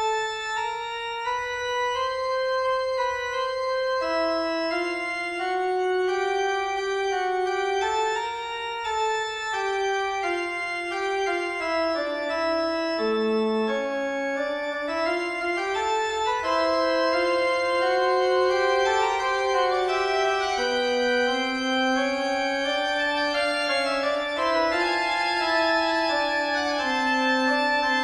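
Background music: an organ playing a fugue, several melodic lines moving against each other in sustained notes.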